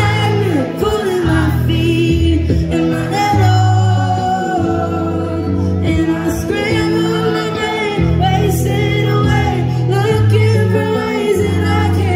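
Live band playing a pop song with electric guitars and bass, a woman singing lead over it.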